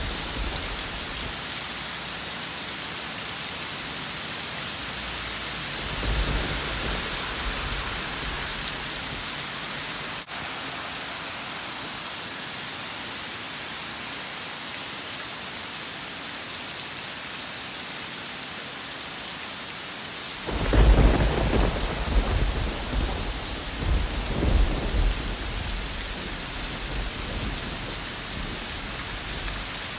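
Thunderstorm: steady rain hiss throughout, with a brief low rumble of thunder about six seconds in and a louder, rolling peal of thunder starting about two-thirds of the way through that rumbles on for several seconds.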